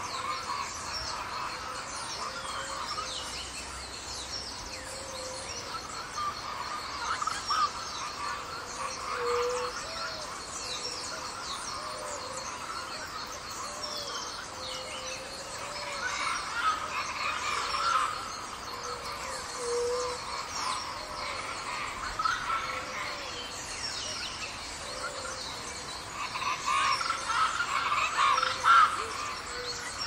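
Busy tropical rainforest dawn chorus: many birds chirping, whistling and calling over one another, with a low soft hoot repeating every second or two beneath them. The chorus grows louder near the end.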